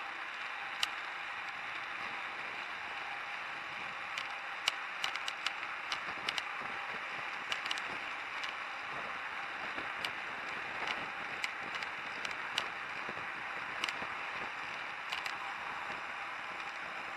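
Steady rushing noise of a bicycle riding through city traffic, picked up by a handlebar-mounted camera, with irregular sharp clicks and rattles scattered through it.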